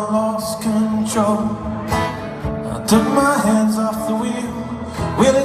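Acoustic guitar strummed in a live solo performance, with sung vocal lines over the chords.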